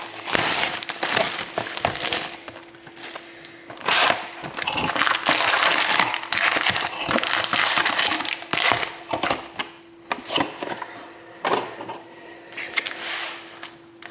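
Hockey card box and its packs being torn open by hand: cardboard cracking and wrappers tearing and crinkling in irregular bursts, over a faint steady hum.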